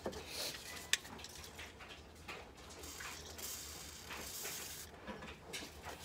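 Small metal clicks from hand tools working around the fuel pump hose fittings, with a sharp click about a second in. A little past the middle comes a high hiss of about a second and a half, like a WD-40 aerosol can spraying the stuck hose to loosen it.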